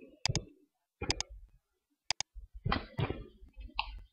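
Computer mouse clicks: a single sharp click, then two quick double clicks about a second apart. In the last second and a half come several softer, duller taps.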